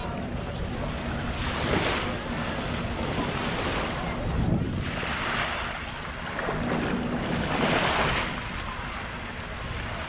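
Small waves washing up the sand at the shoreline in repeated surges, about four in ten seconds.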